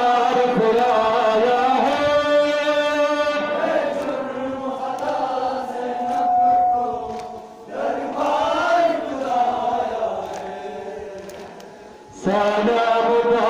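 Men's voices chanting a Muharram noha, a sung Shia lament, in long melodic phrases. The chant dips between phrases about two-thirds of the way through and again near the end.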